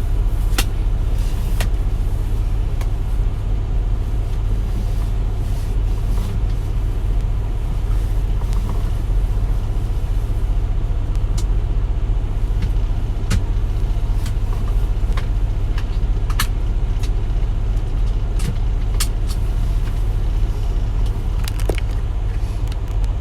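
Steady low rumble of a car driving, the engine and road noise of a moving vehicle, with a few brief faint clicks scattered through.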